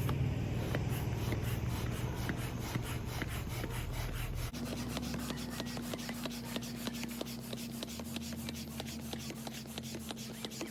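Manual double-action hand pump, which pushes air on both the push and the pull, being worked in steady repeated strokes to inflate the first chamber of an Intex Challenger K2 inflatable kayak.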